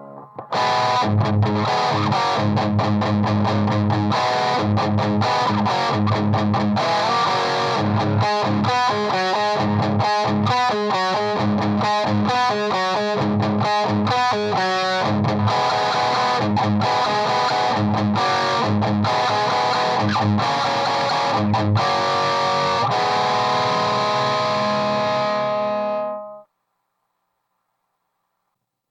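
Electric guitar played through a Saphue Crunch distortion pedal into an Orange Rocker 15 amp and Celestion Vintage 30 speaker: distorted riffs with a stretch of fast single notes in the middle, ending on a held chord that stops suddenly near the end.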